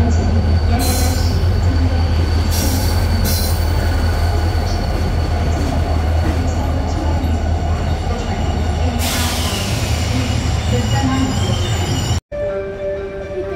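Diesel locomotive running past with a deep, steady engine drone as it hauls passenger cars alongside the platform, with several short high-pitched wheel squeals. The sound cuts off abruptly near the end.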